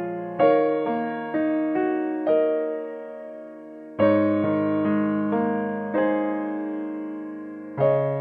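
Background piano music: a slow melody of struck notes over chords, each note fading away. The music breaks off and starts again abruptly about four seconds in.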